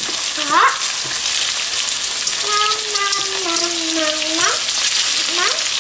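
Chicken pieces frying in hot cooking oil in a pan, a steady crackling sizzle as the chicken browns for adobo.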